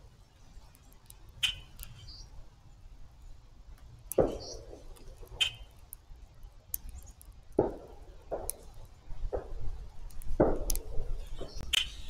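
Irregular sharp taps and knocks, roughly one every second or so, from a grackle pecking at seed in a plastic tray feeder, over a low rumble of wind on the microphone.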